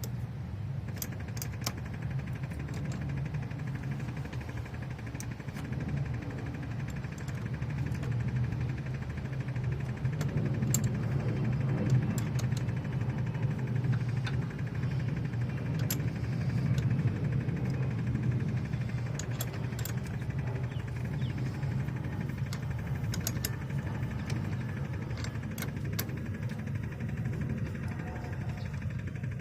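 Blend door actuator in the dashboard of a 2013 Chevy Impala, heard as scattered irregular clicks over a steady low hum.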